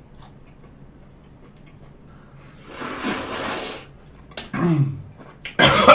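A person slurping spicy jjamppong broth straight from the bowl for about a second, followed by a short hum and a sharp, loud exhale near the end.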